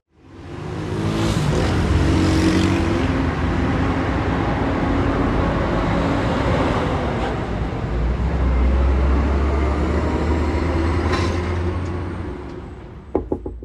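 Car driving past at close range: steady engine and road noise that fades out about 12 s in, followed by a few sharp clicks near the end.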